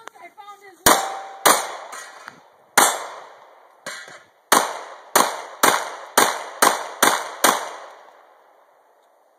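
A semi-automatic pistol is fired about a dozen times, each shot echoing briefly. The first few shots are spaced out, then comes a steady string of about two shots a second. The echo of the last shot fades away about a second after it.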